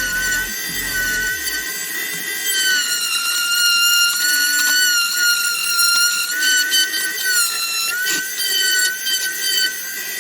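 Small high-speed rotary tool running with a steady high whine, grinding away plastic; its pitch wavers and dips slightly as it is pressed into the work.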